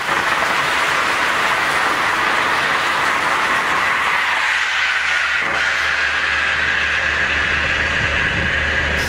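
Hybrid rocket engine on a horizontal ground test stand, blasting its jet out as a loud, steady rushing noise. The rush drops slightly in pitch a little over halfway through, then cuts off suddenly at the very end.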